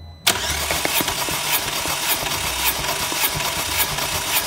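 Chery SQRE4G16 1.6-litre 16-valve four-cylinder engine turned over on its starter for a compression test of cylinder 2, cutting in sharply about a quarter second in, with a regular beat a little under twice a second. This cylinder reaches about 11 bar on the gauge, healthy compression.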